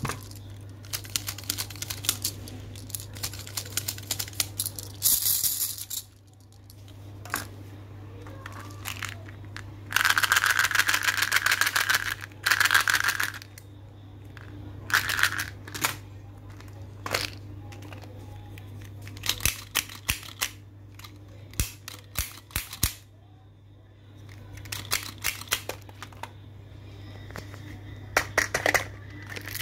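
Hard plastic candy toys and dispensers clicking, clattering and rattling as a hand picks them up and sets them down in a pile, with a few stretches of packet wrappers crinkling, the longest about ten seconds in. A steady low hum runs underneath.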